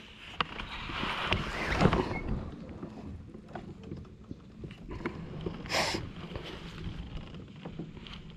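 Baitcasting rod and reel being handled in a kayak: small clicks and ticks, with a louder rush of noise about two seconds in and a short hissing burst about two-thirds of the way through.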